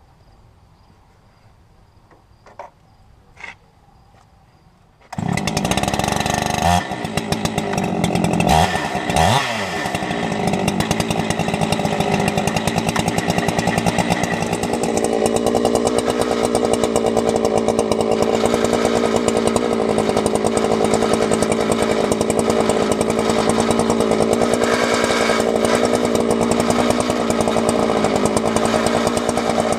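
Husqvarna 372XP two-stroke chainsaw starting about five seconds in, revving up and down a few times, then running steadily at high speed.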